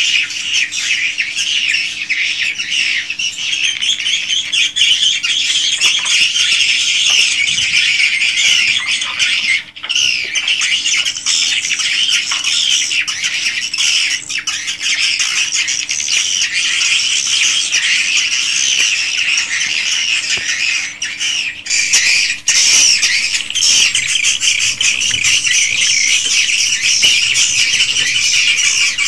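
A large flock of edible-nest swiftlets twittering continuously inside a swiftlet house, a dense overlapping chatter of rapid high chirps. A faint steady low hum sits underneath.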